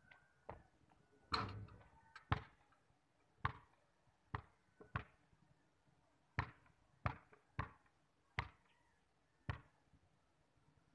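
Basketball bouncing on a concrete court: about a dozen sharp, separate bounces at uneven intervals.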